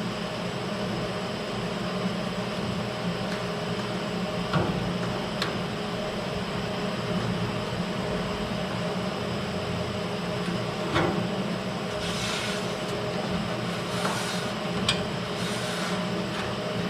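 Steady mechanical hum, like shop machinery or a ventilation unit running. A few sharp metallic clicks come through it, and short scraping or hissing noises follow in the second half as metal parts are handled and fitted.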